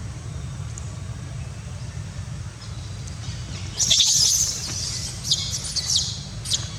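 A baby monkey squealing: a burst of high-pitched squeaks starting a little past halfway, the first the loudest, then several shorter ones, over a steady low rumble.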